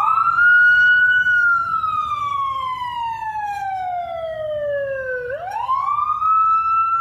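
A wailing siren sound effect: one tone rises quickly, falls slowly for about four seconds, then sweeps up again near the end. It is played through Adobe Audition's Doppler Shifter effect, set so that the source passes on the left.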